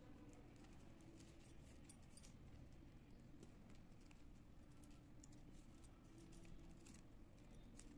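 Faint, irregular clicking and rubbing of plastic craft wire strands being crossed and pulled into box knots by hand, over a low steady room hum.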